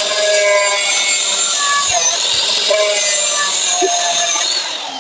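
Electric angle grinder cutting through steel rod, running with a loud high whine that dips briefly under load. Near the end it is switched off, and the whine falls away as the disc spins down.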